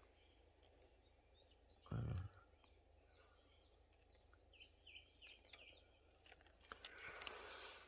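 Faint, repeated short bird chirps over near silence. A brief low sound about two seconds in, and a soft rustle near the end.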